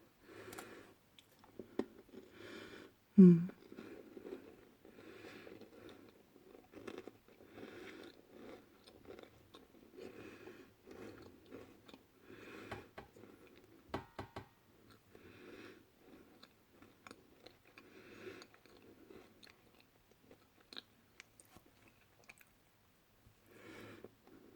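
Close-miked chewing and crunching of crisp food, likely Spekulatius spiced biscuits, in a steady run of bites and chews. A brief loud sound falling in pitch comes about three seconds in.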